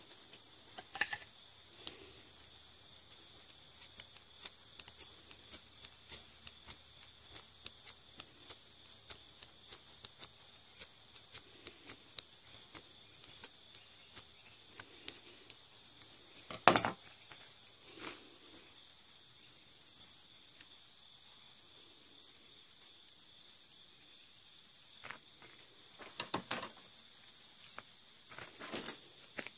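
A steady high-pitched chorus of insects such as crickets, over frequent small clicks and scrapes of a knife shaving the end of a wooden hand-drill spindle. A loud knock comes just past halfway, and a few more come near the end.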